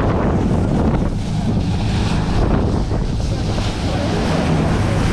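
Wind buffeting the microphone over water rushing along the hull and the steady low running of a charter fishing boat's engine under way.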